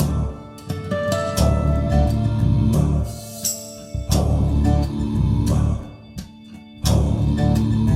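Instrumental break in a song: drums, bass and guitar playing with no singing.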